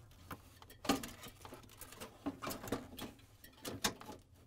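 Scattered light knocks, clicks and rustles of gloved hands lifting and seating a refrigerator's aluminium-finned evaporator coil in the plastic freezer compartment, the sharpest knock about a second in.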